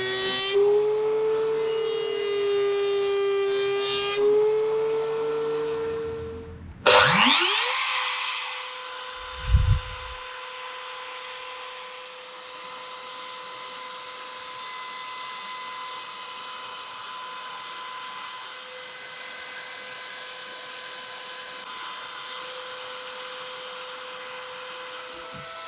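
A wavering pitched tone for the first six seconds or so. Then the compact CNC router's spindle runs at a steady high pitch, milling wood, with a brief low thump about nine and a half seconds in.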